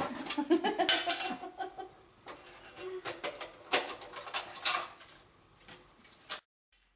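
Things being handled on a tabletop: a scattering of light, irregular clicks, taps and clinks. They thin out and stop about six seconds in.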